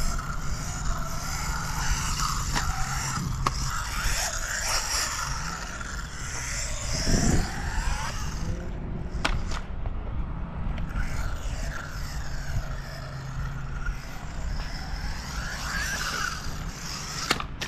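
A 1/16-scale HSP Vortex Mini electric RC buggy driving over skate-park concrete. Its motor whines, rising and falling in pitch as the throttle changes, over the steady scrape and rattle of its small tyres and chassis on the concrete. A few sharp knocks come from the car landing or striking the ramps.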